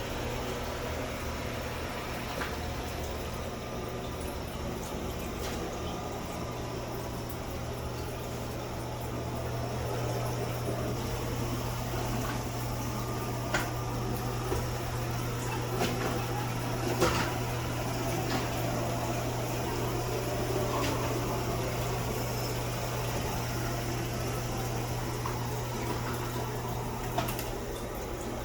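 Robot vacuum running: a steady motor hum and whir, with a few sharp clicks along the way, the loudest about 17 seconds in.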